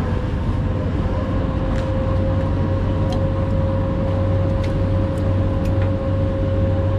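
A boat's engine running steadily under way: a constant low drone with a thin, steady whine above it, over a rush of wind and water noise.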